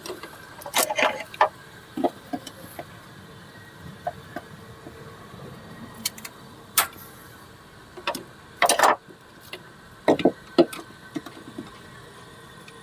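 Scattered clicks, taps and short rattles of a hand working at a coolant hose clip in a car's engine bay, the loudest knocks coming in the last third.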